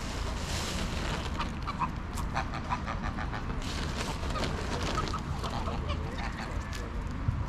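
A flock of greylag geese feeding close by, giving many short, soft honks and calls scattered through, over a steady low rumble.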